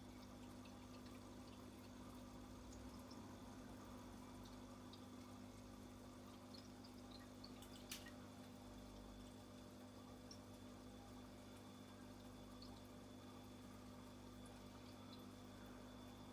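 Aquarium air pump humming faintly and steadily, with bubbling water and small scattered drip-like pops; one sharper click about eight seconds in.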